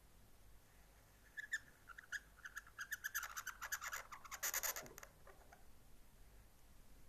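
Inked reed qalam nib scratching across paper as a letter stroke is drawn. It is a quick run of dry scratches that starts about a second in, grows loudest near the end of the stroke and stops after about five seconds.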